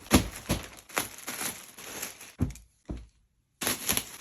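Packaging crinkling and rustling with sharp crackles as it is handled and opened. The sound cuts out completely for about half a second about three seconds in, then starts again.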